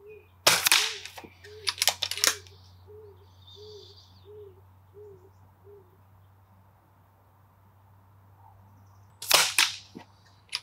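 Daystate Wolverine R C Type pre-charged pneumatic .22 air rifle firing twice, sharp cracks about half a second in and near the end. A few seconds after the first shot comes a quick run of mechanical clicks as the side lever is cycled to load the next pellet.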